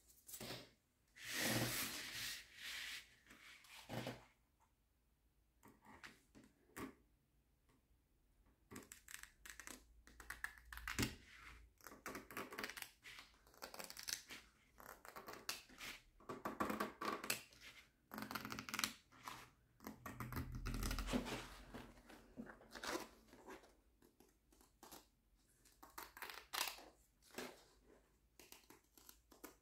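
Rustling, crinkling and snipping as a diamond painting canvas and its paper edge strips are handled and cut with scissors, in irregular bursts. There is a quiet spell of a few seconds about five seconds in.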